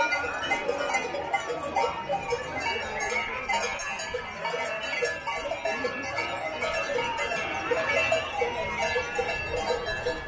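Bells worn by a passing flock of sheep and goats ringing and clanking, a continuous jangle of many bells at different pitches.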